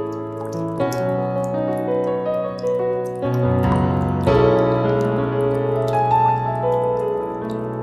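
Slow, soft piano music with sustained chords that change every second or so, and faint dripping from melting icicles ticking over it.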